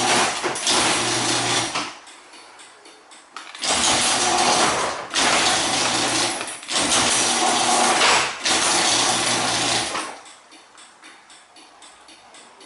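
LiftMaster garage door opener running loudly with a steady hum: it runs for a couple of seconds, stops, then starts again and runs for about six seconds before stopping. The door will not stay closed, a fault the owner later traced to dirty safety-sensor lenses.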